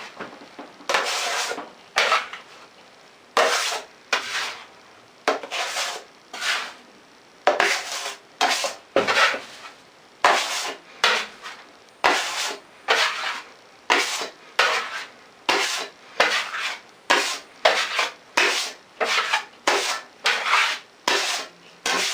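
Steel knife and trowel scraping setting joint compound (plaster of Paris mixed into all-purpose compound) off a mixing board and onto a metal hawk, in repeated short scraping strokes about one or two a second.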